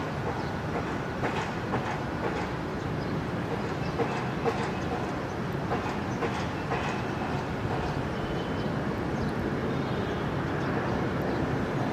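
Airbus A330-300 jet airliner taxiing in the distance: a steady rumble with scattered small clicks and knocks.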